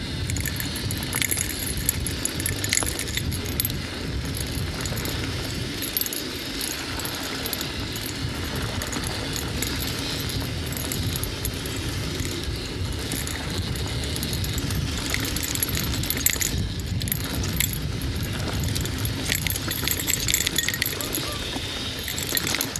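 Mountain bike ridden fast down dirt singletrack: steady rumble of tyres over the trail, with continual metallic rattling and jingling from the bike.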